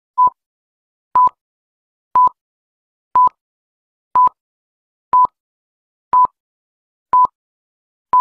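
Short single-pitched electronic beeps, one each second and about nine in all, each cutting on and off sharply with silence between: the beep of a film-leader countdown, one per number from nine down to one.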